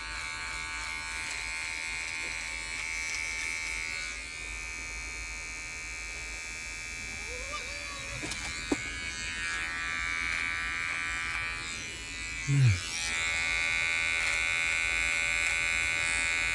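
Electric shaver buzzing steadily while cutting beard hair, its tone shifting as it is moved over the face and growing louder about two-thirds of the way in. A single click a little past halfway and a brief vocal sound shortly after.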